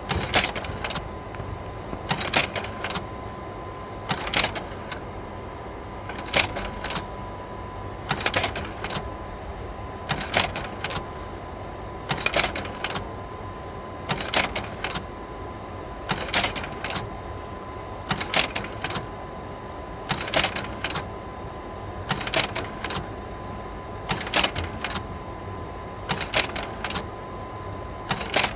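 Slide projector cycling through slides, its slide-change mechanism clacking in a short cluster of clicks about every two seconds as each slide drops into place. Under it runs the projector's steady cooling-fan whirr with a thin steady tone.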